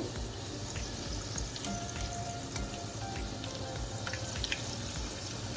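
Small stuffed pasta parcels of cocoa dough deep-frying in hot oil: a steady sizzle with fine crackling.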